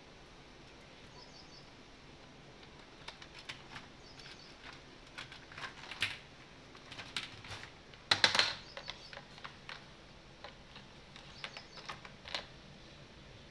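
Plastic toys clicking, knocking and rattling as a cocker spaniel puppy digs through a plastic basket of toys: irregular clatter, with the loudest burst a little past the middle.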